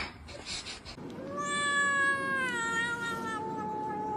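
A domestic cat giving one long, drawn-out meow that starts about a second in and slowly falls in pitch.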